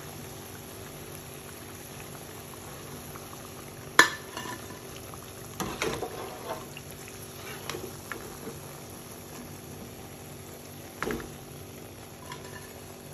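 Hot oil sizzling steadily in a karahi as fried gram-flour vadas are lifted out with a metal skimmer ladle, which clinks against the pan a few times, the sharpest about four seconds in.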